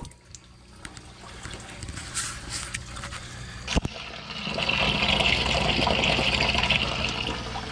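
Water from the pump-fed faucet trickling into a sink and draining through a PVC drain pipe, splashing into a plastic bucket below, louder from about four and a half seconds in. A low steady hum sits underneath, the water pump running, with a single click about four seconds in.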